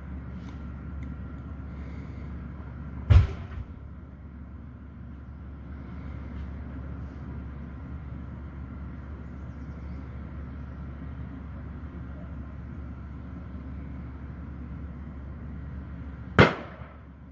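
Two sharp bangs from a burning backhoe, one about three seconds in and one near the end, each dying away quickly, over a steady low rumble.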